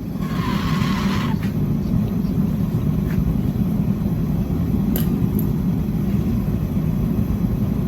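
Shop machinery running with a steady, loud low rumble, with a brief hiss in the first second or so and a couple of faint ticks.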